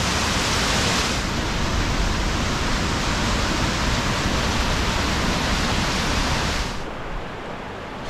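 Small mountain waterfall cascading over rocks into a pool: a steady rush of falling water. Near the end it drops suddenly to the quieter sound of a shallow stream.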